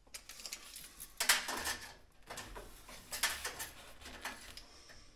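Light metallic clatter and scraping from metal drywall framing and tools being handled, in a few short bursts.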